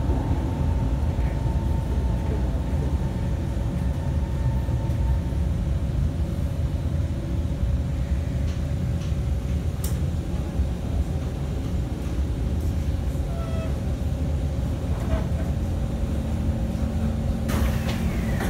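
Cabin running noise of a Kawasaki Heavy Industries C151 metro train car at speed: a steady low rumble with a constant whine from the traction equipment. A higher tone fades out about five seconds in, and a lower hum comes in near the end.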